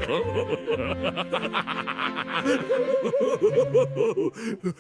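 A cartoon character snickering in a run of quick, repeated chuckles over light background music.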